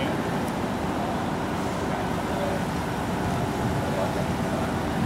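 Steady low rumble of a motor vehicle or street traffic, with faint voices in the background.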